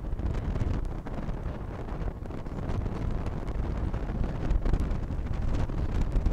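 Wind buffeting a phone's microphone on a moving motor scooter: low, gusting noise with the scooter and road noise blended in underneath.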